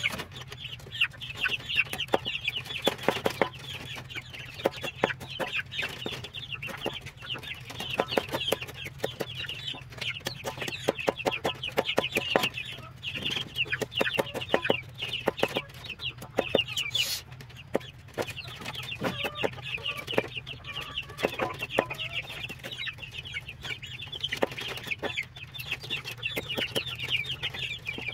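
Machete blade chopping feed on a wooden plank in quick, repeated knocks, with chickens clucking throughout.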